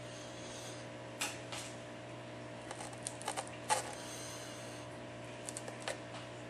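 Small, sharp clicks and taps of a tool working the glass digitizer free from around an iPad's LCD. There are a few scattered through, with the loudest a little before the middle, over a steady faint hum.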